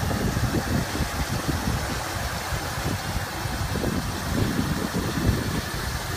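Freshly rebuilt Ford 390 V8 of a 1967 Galaxie 500 idling steadily with a low, even rumble.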